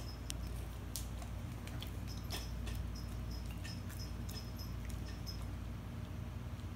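A puppy chewing and licking at bread held between its paws: scattered small, irregular wet clicks and smacks of its mouth, over a steady low hum.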